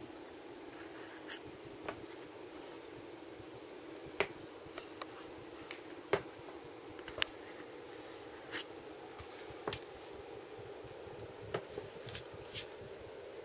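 Steady hum with a dozen or so short, sharp clicks and taps at irregular intervals, typical of a handheld camera being moved around and a hand touching the table and equipment.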